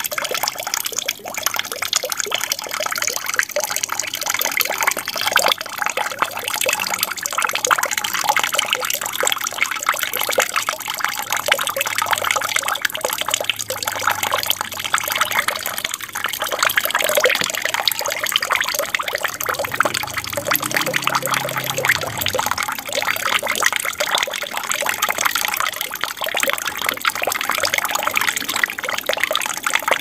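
Water trickling and splashing steadily in an aquarium with a waterfall feature.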